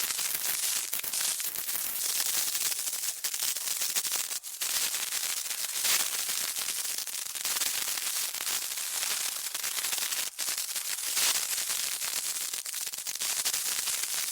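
Burning fuse sizzling: a continuous high-pitched crackling hiss with fine spits and a few brief dips, cutting off suddenly at the end.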